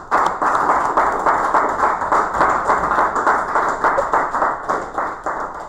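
Applause from a small audience of a dozen or so people clapping, dying away near the end.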